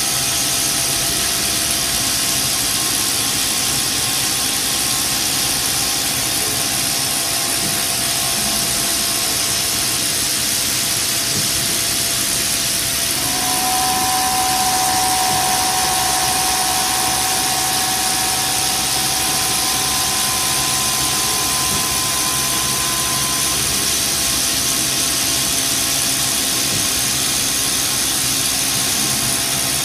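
CNC milling machine spindle running with its end mill cutting linen phenolic: a steady machining noise with a high hiss and a thin whine. About 13 seconds in a second, higher whine joins and the noise rises slightly, then drops away about ten seconds later.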